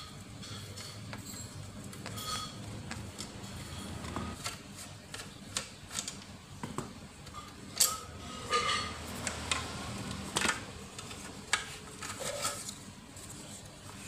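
Screwdriver work on the sheet-metal case of a Lakoni inverter welding machine as the fan and panel screws are undone and the cover is taken off: scattered metallic clicks, clinks and knocks, with a few sharper knocks in the second half.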